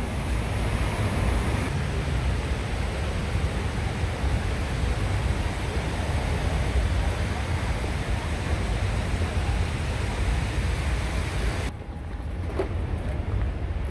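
Steady rushing of water from the Mirage lagoon's rock waterfalls, with wind rumbling on the microphone. Near the end the hiss drops away abruptly, leaving a lower rumble.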